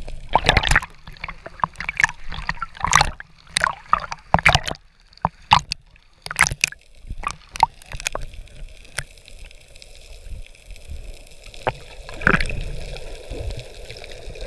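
Seawater splashing and bubbling around a camera held just under the sea surface, heard muffled through the water. Irregular splashes and gurgles fill the first half, then give way to a quieter steady hiss, with one more splash about twelve seconds in.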